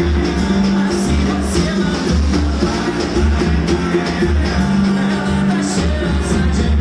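Band music: a song played with a loud bass line that pulses in repeated low notes under a dense mix of instruments.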